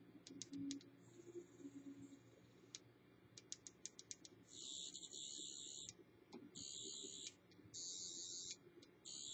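Sonic screwdriver sound effect from the vape's built-in soundboard and small speaker: a high, warbling electronic whine played in four bursts of about half a second to a second and a half each. Runs of quick clicks come before the first burst.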